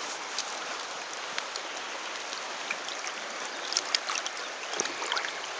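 Shallow river running steadily over stones, with a few small splashes near the end as a hand works in the water inside a landing net holding a small trout.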